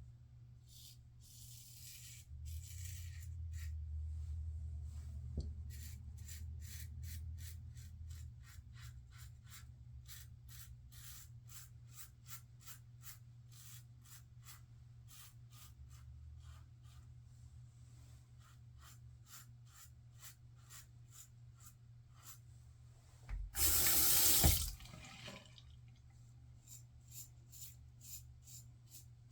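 Injector razor scraping through lathered stubble in short strokes, roughly two a second. Near the end a tap runs briefly at the sink, the loudest sound.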